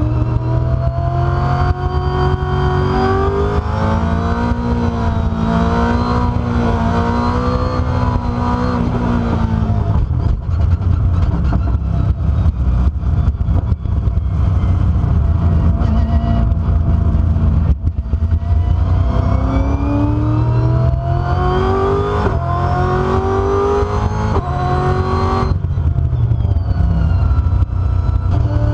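Brabham BT62's V8 heard from inside the cockpit on track, accelerating hard with the revs climbing and dropping back at each gear change. A spell of rougher, less tuneful engine noise in the middle comes before it pulls hard through the gears again, with light rattles in the cabin.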